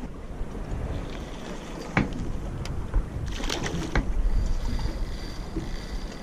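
Water lapping against a small boat's hull with wind on the microphone, and a few sharp knocks and splashes, about a second apart, while a fish is reeled in to the side of the boat on a light rod.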